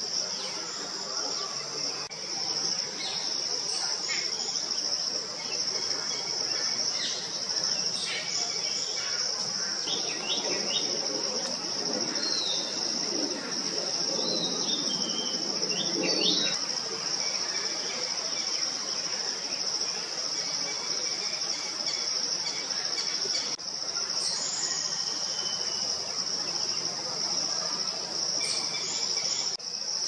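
Steady high-pitched insect drone, with scattered short bird chirps through the first half.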